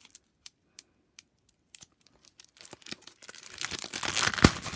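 Clear plastic stamp-set packaging being handled and torn open. A few light clicks at first, then crinkling and tearing that builds from about halfway through, with a sharp snap near the end.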